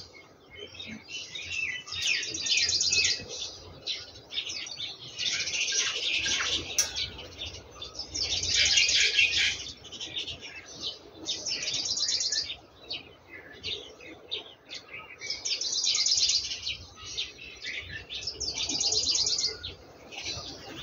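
Small songbirds singing rapid, high trilled phrases of about a second each, recurring every few seconds.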